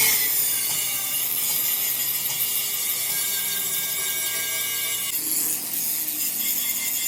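Workshop tool noise: a steady, high-pitched rasping of a tool cutting into material, with a sudden change in character about five seconds in.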